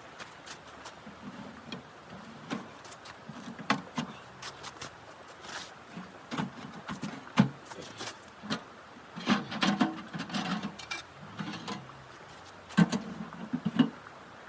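Irregular clicks and short dull knocks in clusters, the sharpest about halfway through and again near the end, over a faint steady hiss.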